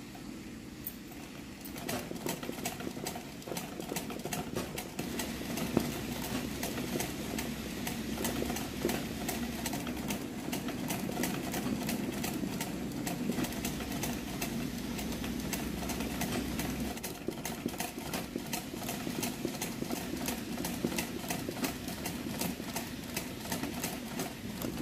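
Sewing machine running steadily for free-hand machine embroidery, its needle stitching through hooped fabric in a fast, even clatter over a motor hum. It gets louder about two seconds in.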